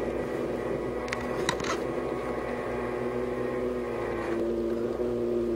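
Quadcopter motors humming steadily, their pitch shifting a little about four seconds in, with a few light clicks about a second and a half in.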